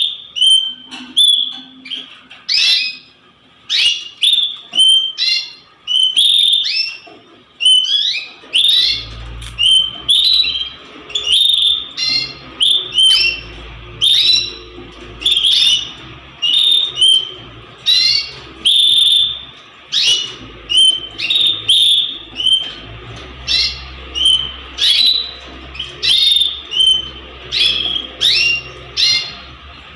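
Domestic canaries chirping, short sharp notes repeated about once or twice a second. A low steady hum joins about nine seconds in.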